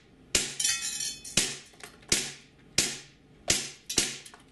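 WE Little Bird (Toucan) gas blowback airsoft pistol, a compact M&P replica with a metal slide, firing six shots, each a sharp crack of gas and the slide snapping back. Most shots come about two-thirds of a second apart, with the last two closer together.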